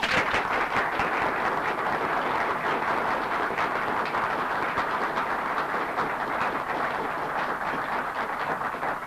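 Audience of many people applauding: steady, dense clapping that starts abruptly.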